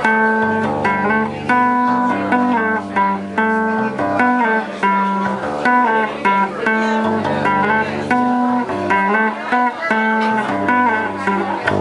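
Electric bass guitar playing an instrumental piece: a melody of plucked notes and chords ringing over held low bass notes.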